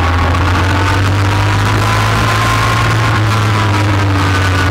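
ATV engine running steadily under way on a dirt trail, a constant low drone.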